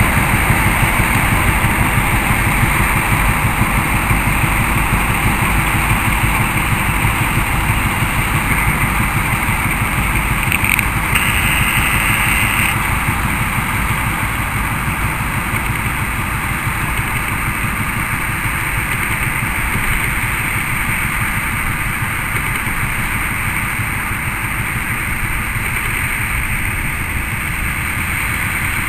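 SM30 diesel shunting locomotive running at low speed as it pulls tank wagons, its engine note steady and easing slightly. A brief high-pitched tone joins it for about two seconds, roughly eleven seconds in.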